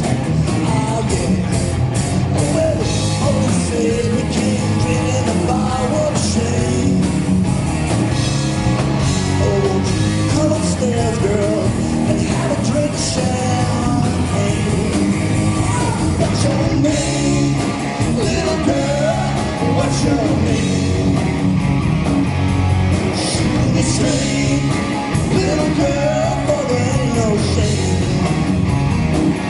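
Live southern rock band playing at full volume: distorted electric guitars and a drum kit driving a steady beat, with a wavering lead melody over them.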